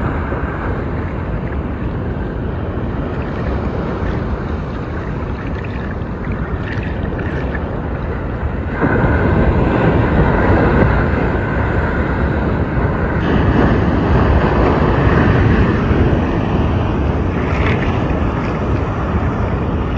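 Steady rushing of wind on the microphone and ocean water around it, stepping up abruptly in loudness about nine seconds in.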